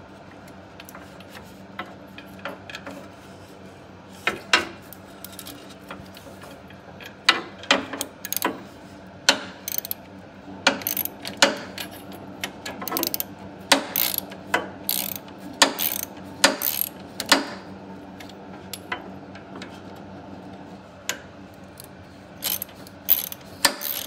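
Hand ratchet with a 5/16 socket clicking in short irregular runs as it works a radiator bracket bolt loose, with a lull about two-thirds of the way through.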